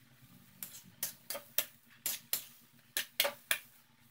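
Metal spatula knocking and scraping against a metal wok as chopped cabbage and meatloaf are stirred: a run of short, sharp clicks, about three a second.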